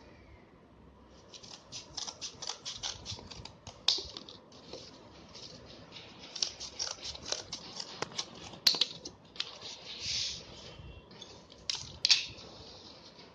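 Scissors cutting through corrugated cardboard: a run of short, rapid snips, with a few louder sharp clicks among them.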